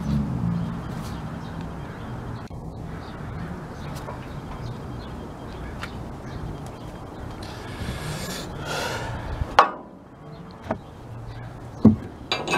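A heavy steel tow hook is handled against a steel truck bumper: a rough scrape, then one sharp metal clank, followed by a few lighter knocks near the end.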